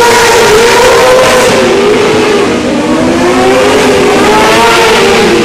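Several micro sprint car engines running together, loud, their pitches wavering up and down as they rev and ease off.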